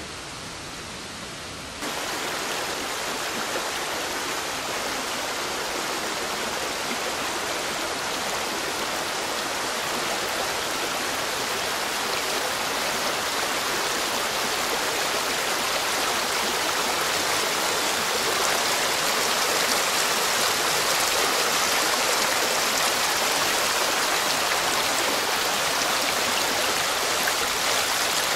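Torrent water rushing steadily. It gets suddenly louder about two seconds in, then slowly louder still.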